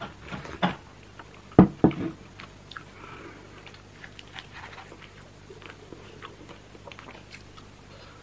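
Close-miked eating and drinking sounds: two loud low gulps about a second and a half in as a drink is swallowed from a glass, then soft small crackles as roasted chicken meat is pulled apart by hand and eaten.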